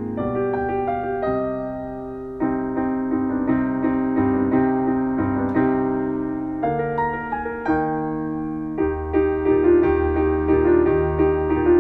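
Slow, gentle piano music: chords and melody notes struck and left to fade, with deeper bass notes coming in about nine seconds in.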